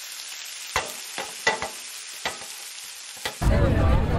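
Food sizzling in a hot pan, a steady hiss, with about seven sharp knife chops on a cutting board at uneven intervals. Near the end it cuts abruptly to a louder, deeper background sound.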